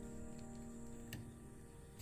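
Background music: a held chord fading out, with a light tap about halfway through and another at the very end.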